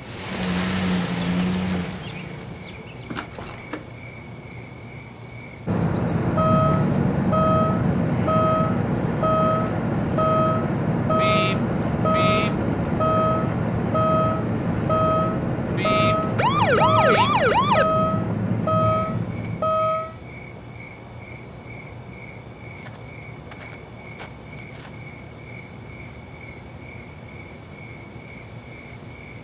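A car's seat belt warning chime pinging high and steady, about twice a second. For a long stretch in the middle a louder, lower beeping takes over, about three beeps every two seconds, over a rumble, with a quick police siren yelp near its end. Then the louder beeping stops and the chime goes on.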